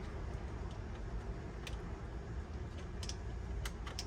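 A few light, sharp clicks of small hardware such as washers being handled, over a steady low hum.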